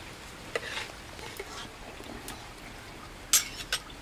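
A metal ladle stirring and scooping egg-and-tomato soup in an aluminium pot, with light scrapes and clinks, then two sharp clinks of the ladle near the end as soup is served into a bowl.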